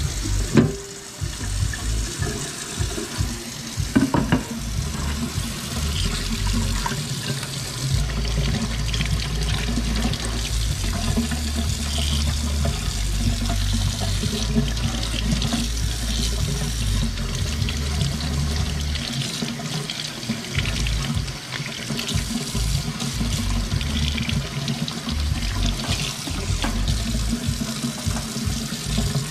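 Kitchen tap running steadily into a stainless steel sink while cooked snow crab legs are rinsed under it, the water splashing over the shells and the metal. A couple of sharp knocks come about half a second and four seconds in.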